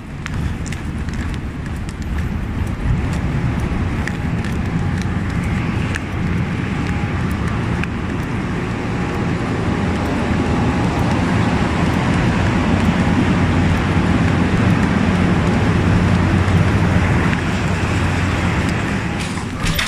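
Steady low rumbling background noise with no voices, getting somewhat louder over the second half.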